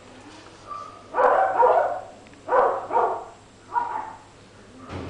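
A dog barking: about five short, loud barks, mostly in pairs.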